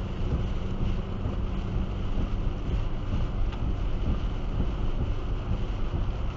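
Steady road and engine rumble inside a car travelling at about 90 km/h on a rain-soaked motorway, with tyres hissing on the wet surface.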